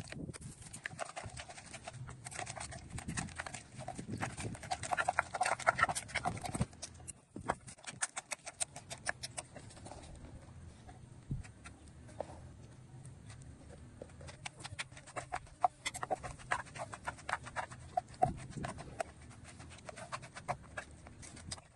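Wooden pestle pounding in a clay mortar, quick runs of knocks, with a metal spoon scraping and turning the ingredients of a green papaya salad (bok lhong). The knocking comes in two stretches with a quieter lull between them.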